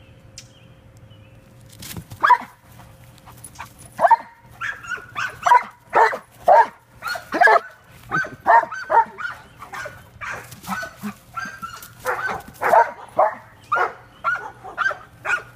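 Giant Schnauzer barking and yipping over and over as it chases a flashlight beam. The barks start about two seconds in and come about twice a second.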